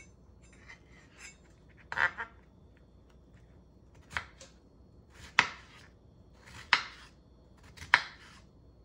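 A kitchen knife cutting peeled raw potato into small cubes on a wooden cutting board: about five sharp knocks as the blade strikes the board, a second or so apart.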